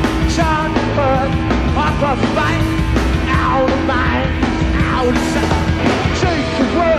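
Live hard rock band playing a song at full volume: distorted electric guitars, bass and drums with a pitched melodic line bending over them. The sound comes off a cassette recording of a radio broadcast.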